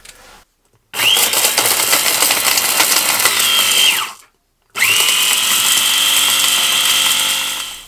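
Electric blade spice grinder running in two bursts of about three seconds each, grinding whole cardamom pods, cumin, coriander seeds and peppercorns to powder. Each burst is a high motor whine over a rushing noise, rising in pitch as the motor spins up and dropping away as it stops.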